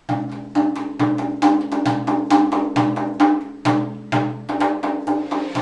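Large hand-held frame drum played with the hands in a steady rhythm: deep ringing bass strokes about once a second, with quicker, lighter, higher strokes between.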